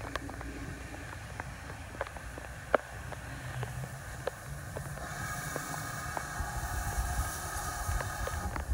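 Steam locomotive running in slowly from a distance: a low rumble, with a hiss that comes up about halfway through. Irregular sharp ticks of raindrops dripping close by.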